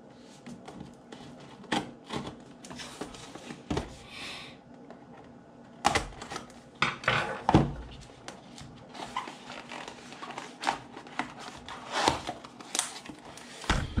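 Cardboard packaging of a power strip being handled and opened: irregular knocks, taps and scrapes as the box is turned over and the packaged strip is slid out of its cardboard sleeve.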